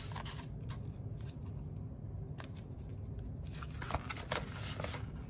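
Banknotes and a plastic zipper pouch being handled, rustling and crinkling in short spells that come more often after about two seconds, over a steady low hum.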